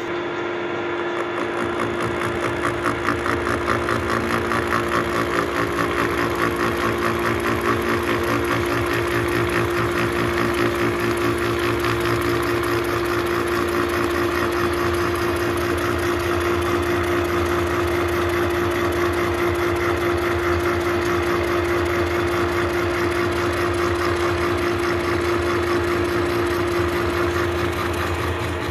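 Milling machine running with a disc form gear cutter cutting a tooth space into a Duralumin spur gear blank. There is a steady hum and a fast, even rattle from the cutter teeth in the cut, which builds up over the first two seconds and then holds steady.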